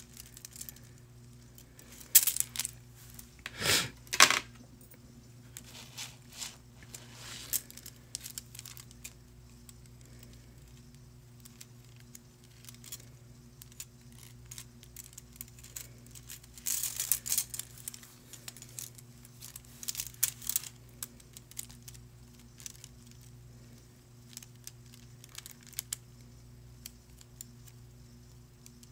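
Small clicks, taps and rustles of nail supplies being handled while an acrylic swatch is made, such as jars, lids and a brush, coming in scattered bursts over a faint steady hum.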